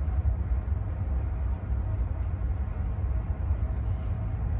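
Steady low rumble of wind buffeting the microphone on a ship's bridge, mixed with the drone of a search-and-rescue helicopter hovering ahead of the bow. A few faint clicks come in the first half.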